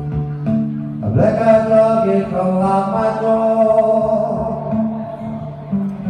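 Live acoustic trio of guitars and violin with voice: a repeated acoustic guitar figure underneath, and a long high note that swoops in about a second in and is held for about three seconds.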